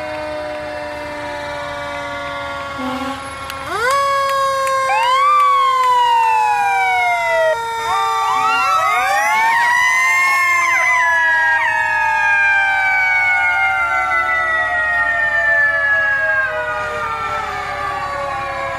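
Several fire truck sirens wailing together and overlapping. From about four seconds in they sweep up sharply one after another, then wind down slowly, their pitch falling over many seconds.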